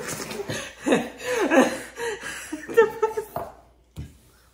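People laughing and chuckling for about three seconds, then a short quiet gap.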